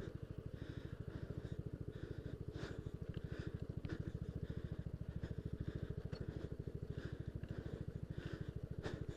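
Single-cylinder engine of a Yamaha Aerox scooter running at low revs, a steady even chug of about ten pulses a second.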